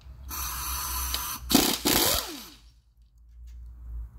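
Pneumatic impact gun running in short bursts on the engine's cylinder-head bolts, with a hiss of air. A falling whine follows about halfway through as the tool spins down.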